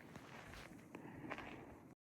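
Footsteps in snow, a few faint steps, cutting off abruptly near the end.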